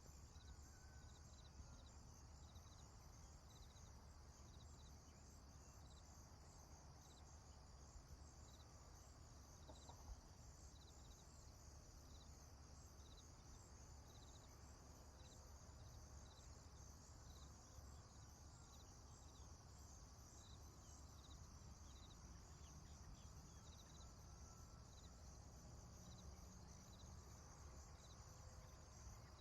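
Faint prairie ambience: a steady high-pitched insect chorus with one chirp repeating about once a second, over a low rumble.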